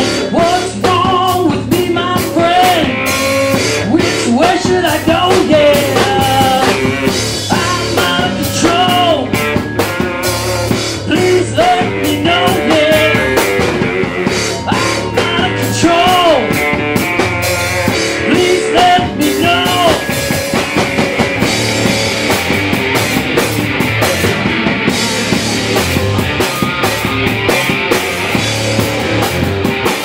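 Live rock band playing loudly on electric guitars and drum kit, with a pitch-bending melody line over the first twenty seconds or so.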